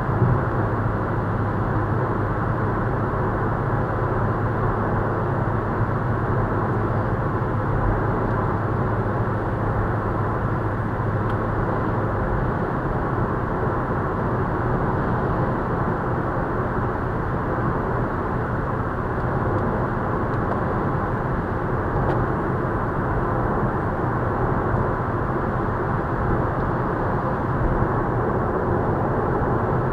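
Steady, muffled road and wind noise inside a Volkswagen Scirocco's cabin at motorway speed, with tyre roar and a low engine drone; the drone shifts about twelve seconds in.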